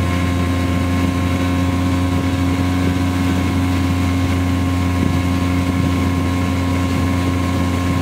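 Ski boat's engine running steadily at towing speed, heard from aboard the boat, with an even hum and rushing wash.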